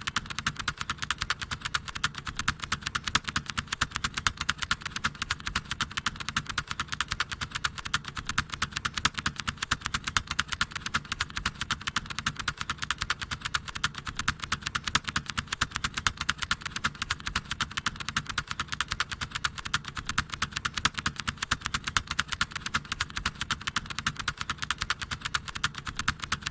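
Continuous fast typing on a mechanical keyboard with a deep 'thock' sound, keystrokes coming in a steady, rapid stream.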